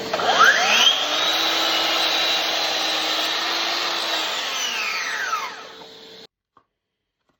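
Cordless DeWalt miter saw motor spinning up with a rising whine, running at full speed, then winding down with a falling whine before it stops.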